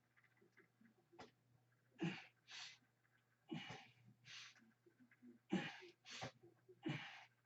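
A man's heavy breathing during push-ups: a sharp breath out and a breath in with each repetition, about one repetition every second and a half.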